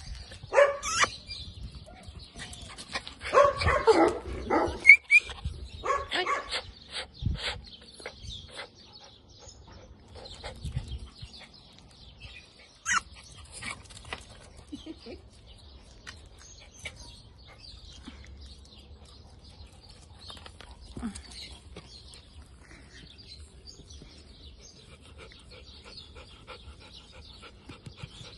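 A small dog barking and yipping in bursts over the first several seconds, then quieter, with scattered light clicks and scuffs.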